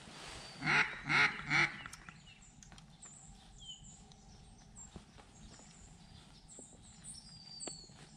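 Three loud duck quacks about half a second apart, about a second in, followed by faint high twittering of small birds.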